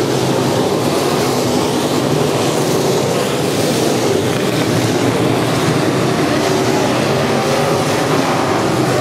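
Dirt-track street stock race cars' V8 engines running hard at racing speed. Several engines overlap in a loud, steady drone that holds level throughout.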